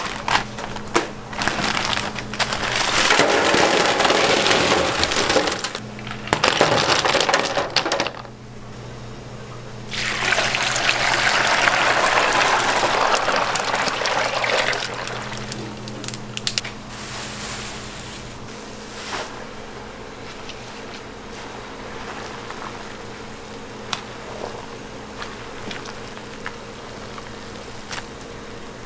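Ice cubes poured from a bag into a stainless steel tub, then a loud rush of water for several seconds, settling into a pot of water bubbling at a rolling boil as basil leaves are blanched in it, over a steady low hum.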